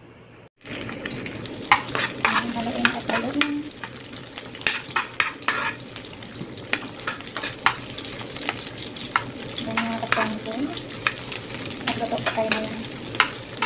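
Sliced red onion and garlic sizzling in hot oil at the start of a sauté, with a spatula scraping and clicking against the pan as they are stirred. The sizzling cuts in suddenly about half a second in.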